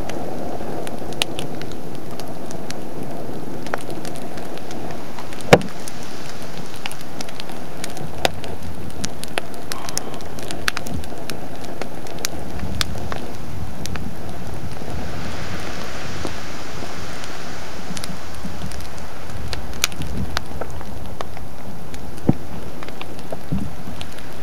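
Littoral explosions where lava meets seawater at a collapsing ocean-entry lava bench: a steady rumbling rush with scattered sharp cracks and pops, the loudest crack about five and a half seconds in. A stretch of hissing rises and fades about two-thirds of the way through.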